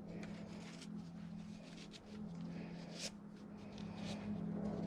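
Faint rustling and a few light clicks of rope being handled as a magnet is fed through the loop of a Palomar knot, over a steady low hum.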